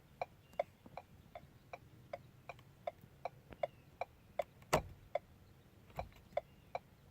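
Ford turn-signal clicker ticking at a steady, even rate, about two and a half ticks a second. This is the normal flash rate with hyper flash disabled for the LED front turn signals. One louder knock comes a little past two-thirds of the way through.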